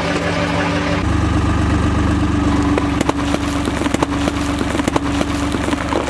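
Road roller's engine running steadily, with a scatter of sharp cracks from about halfway as its steel drum presses down on watermelons and splits their rinds.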